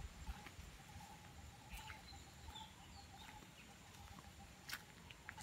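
Faint rural outdoor ambience: a small animal's call pulsing on one pitch repeats over and over, with a few soft footsteps on a muddy dirt path.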